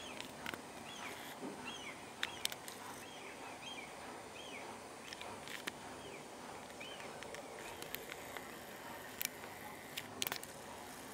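A small bird chirping over and over, short high chirps about once every half-second to second, over a steady outdoor background hiss. A few sharp clicks stand out, two close together a couple of seconds in and more near the end.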